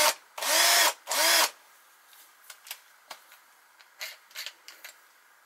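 Cheap cordless drill driving the Myford lathe's cross slide feed screw through a coupling in its chuck, run in short bursts, its motor whine rising and falling in pitch each time. Later, a few light clicks as the drill is handled.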